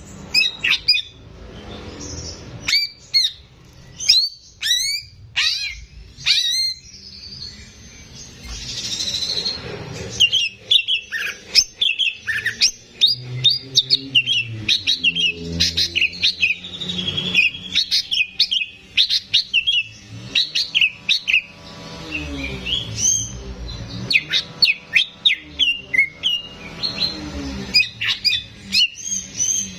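Greater green leafbird (cucak ijo) singing loudly and almost without pause: fast, sharp chirps and sweeping whistled notes in quick bursts, with brief gaps between phrases.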